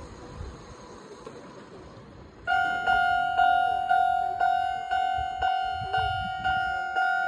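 A Japanese railway level crossing's warning bell starts ringing about two and a half seconds in: a loud, ringing electronic ding struck about twice a second, signalling that a train is approaching.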